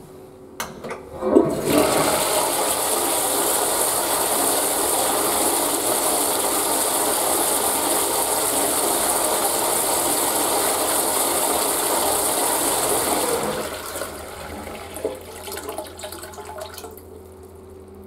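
Western-style toilet with a wall-pipe flush valve being flushed: a few clicks from the flush handle, then a loud, steady rush of water through the bowl for about twelve seconds. It dies away into a weaker trickle near the end.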